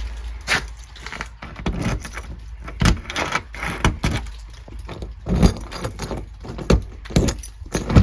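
Keys jangling with an irregular string of knocks and clicks, as a door is handled.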